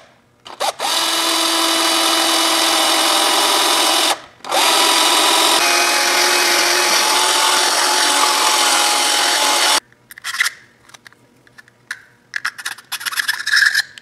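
Power drill running as it bores a small hole through a clear plastic action-camera case, in two runs of a few seconds with a brief stop between, the motor's pitch changing partway through the second run. Near the end, light clicks and rattles of the plastic case being handled.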